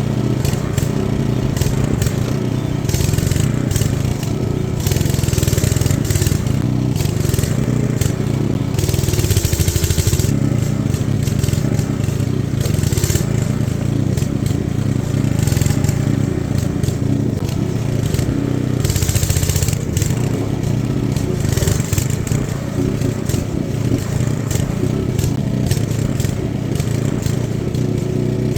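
The 224cc Loncin gas engine of a remote-control lawnmower running steadily while its steel-edged blade pushes dirt, with repeated bursts of scraping and crunching as the blade bites in.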